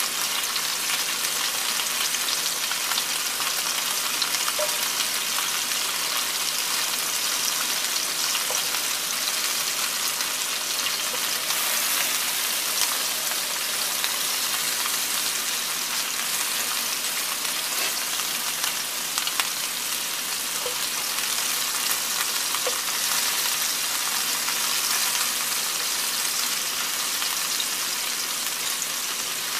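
Meatballs sizzling in hot oil in a cast-iron skillet: a steady frying hiss with a few faint pops scattered through it.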